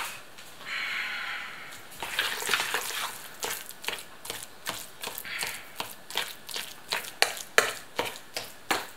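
A utensil stirring and mashing a thick, wet cottage-cheese mixture in a bowl, with short clicks against the bowl about two or three times a second from about three seconds in.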